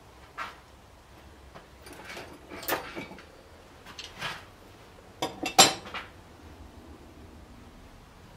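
Small metal objects being handled and clinking against each other: a few scattered clinks, then a louder cluster of clattering a little past halfway.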